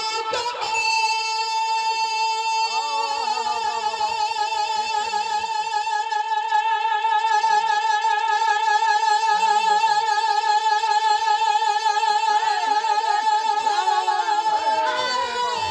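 A man's voice holding one long, high sung note with a wavering vibrato, sung into a microphone in a naat recitation.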